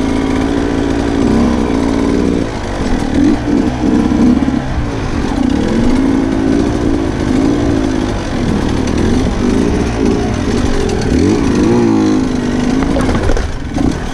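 Sherco 125 dirt bike engine under load, its revs rising and falling over and over as the throttle is worked.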